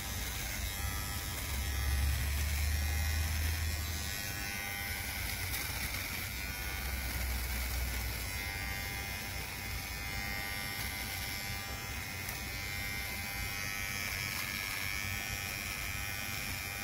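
Kemei cordless electric trimmer running with a steady buzz as it cuts beard hair on the chin. It gets louder and deeper for a couple of seconds about two seconds in, and again about six seconds in.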